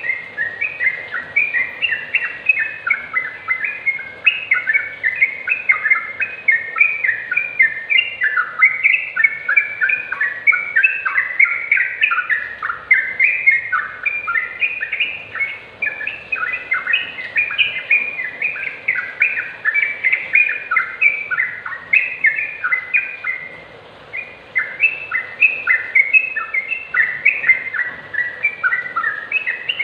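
Yellow-vented bulbul singing in full song: a rapid, continuous run of short bubbly, chattering notes, with a brief break about three-quarters of the way through.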